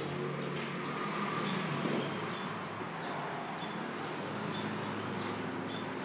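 Short, high chirps from a small bird repeating every second or so, over a steady low rumble of traffic.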